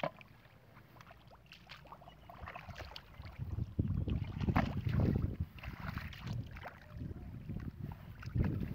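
Muddy water splashing and sloshing in a shallow ditch as it is scooped and thrown out with a bucket and worked by hand. Quiet for the first few seconds, then bursts of splashing about four to six seconds in and again near the end.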